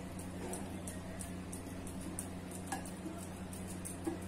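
Silicone spatula stirring thick mango pulp and milk in a glass bowl: faint, repeated soft scraping strokes over a low steady hum.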